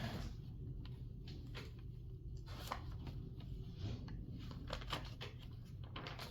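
Faint room tone with a steady low hum and scattered light clicks and rustles, like small handling noises near the microphone.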